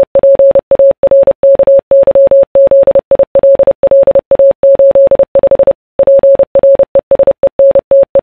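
Morse code: a single steady mid-pitched beep keyed into quick dots and longer dashes, with a brief pause a little before the end and a sharp click as it stops.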